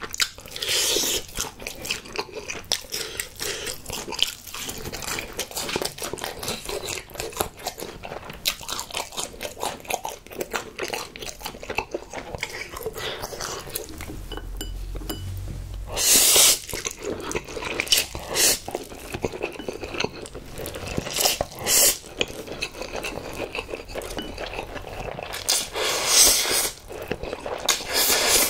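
Close-miked eating: continuous chewing and crunching of sauced fried chicken, with loud noodle slurps about halfway through and again near the end.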